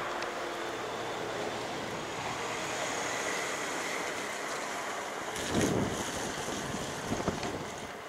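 Wind blowing across the microphone over the wash of the sea, a steady rushing noise. A louder gust or bump comes about five and a half seconds in, and two sharp clicks follow a little before the end.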